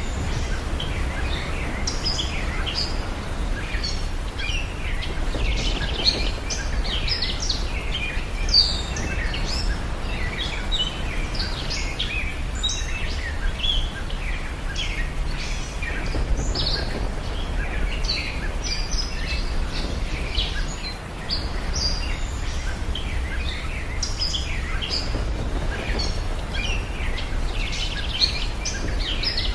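Many small birds chirping and tweeting continuously over a steady low rumble of outdoor ambience.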